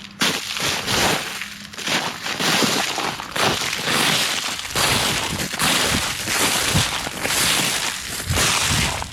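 Footsteps crunching and breaking through a crust of ice, one crunch at each step at a steady walking pace.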